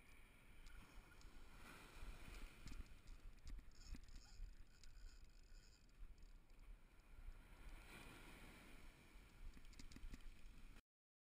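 Faint low rumble of surf washing up the beach and wind on the microphone, with scattered light clicks. The sound cuts off abruptly near the end.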